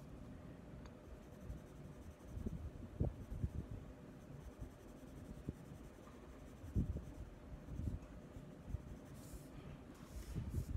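Soft Ebony drawing pencil shading on drawing paper, the lead scratching in strokes. Irregular soft thumps come from the hand and pencil pressing on the paper.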